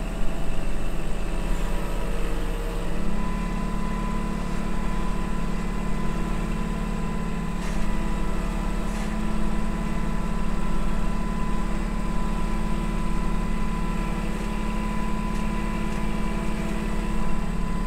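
Kubota L2501 compact tractor's three-cylinder diesel engine running steadily while driving, heard from the operator's seat. The engine note shifts about three seconds in, with a thin steady whine above it.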